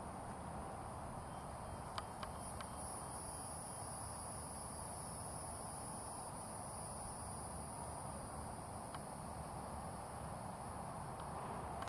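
A steady, high-pitched insect chorus that swells about two and a half seconds in and holds, over a low steady outdoor rumble, with a few faint clicks.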